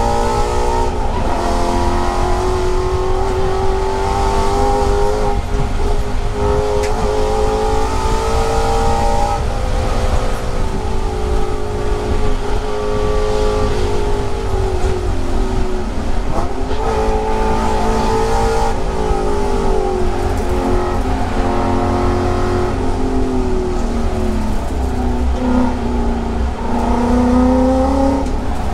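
Mustang race car's engine heard from inside the cabin under hard acceleration: its pitch climbs and drops back at each gear change, several times over. About halfway through it dips deeper as the car slows, then climbs again.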